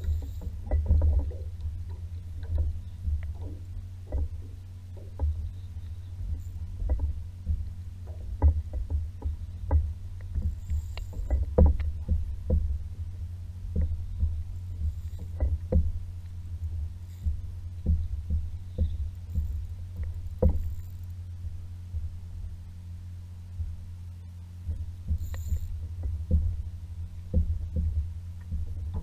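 Muffled low rumble with frequent irregular knocks and taps: water lapping and movement on a paddleboard while an angler fights a fish on rod and reel.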